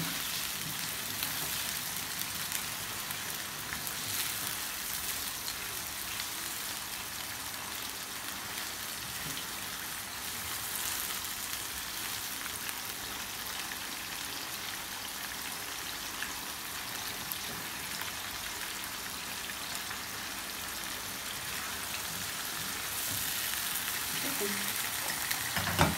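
Chicken pieces frying in hot oil with ginger-garlic paste in a non-stick karahi: a steady sizzle, stirred with a silicone spatula.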